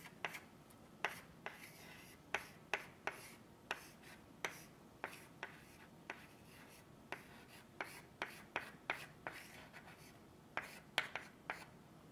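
Chalk writing on a blackboard: a string of short, sharp taps and scrapes at an uneven pace as the chalk strikes and drags across the board.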